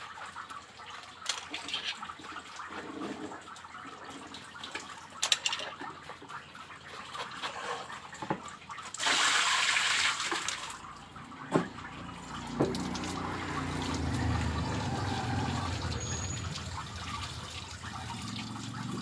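Water trickling and splashing around plastic basins on a wet floor, with scattered knocks. About nine seconds in comes a louder rush of water lasting nearly two seconds, and after that a steady low rumble sits underneath.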